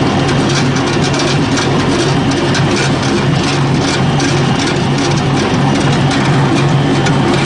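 Wood pellet production line machinery running steadily: a constant low hum with a dense, fast rattle of small ticks over it, from the line carrying freshly made wood pellets.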